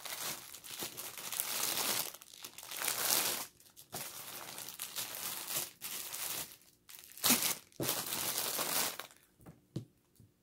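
Clear plastic packaging crinkling and rustling as it is handled, in repeated bursts with short pauses, settling to a few small clicks near the end.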